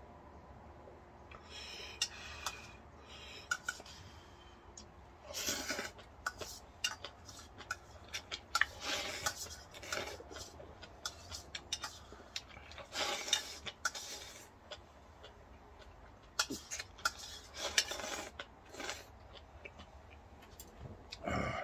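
Spoon and chopsticks clinking and scraping against a dish as rice is stirred into spicy ramyeon broth and eaten. Sharp clicks come with short bursts of scraping every few seconds.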